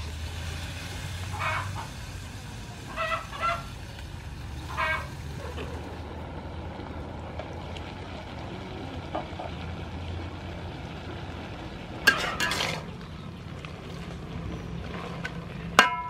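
A wok of razor clams simmering in added water, with a faint hiss that thins out about six seconds in; an animal calls several times in the first five seconds. Near the end a metal spatula strikes the wok with a sharp clank and a brief ring.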